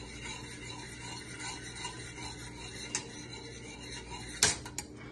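A spoon stirring and scraping around a stainless-steel saucepan of boiling cocoa-and-sugar mixture. One sharp knock about four and a half seconds in.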